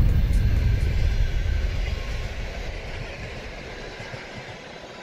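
Passenger train passing and drawing away: a low rumble that fades steadily.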